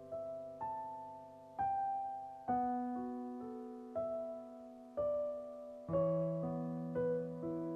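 Background music: slow solo piano, a note or chord struck about once a second and left to ring and fade.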